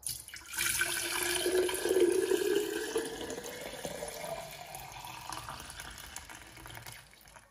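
Cucumber, ginger and lime juice poured in a steady stream into a glass jug, splashing and gurgling, the pitch rising as the jug fills. It tapers off near the end.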